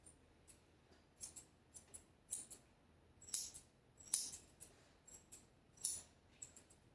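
Grooming scissors snipping through a schnauzer puppy's coat: a run of quick, uneven metallic snips and clicks, some in close pairs, with short pauses between them.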